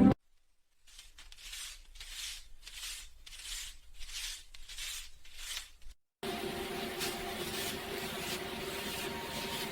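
Paper banknotes being counted by hand: about eight soft, papery swishes at an even pace, roughly one every two-thirds of a second. About six seconds in they cut off and calm background music with held tones takes over.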